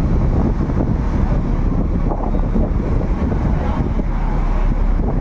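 Wind buffeting the microphone: a loud, steady rumble that flutters without letting up.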